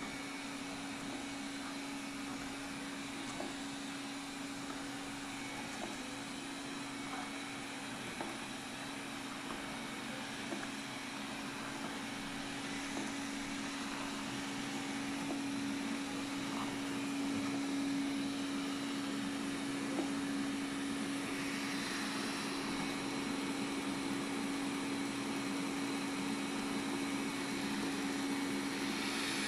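Xiaomi Mijia 1C robot vacuum running mid-clean: a steady motor hum with a hiss of suction, a few faint light ticks, growing a little louder about halfway through.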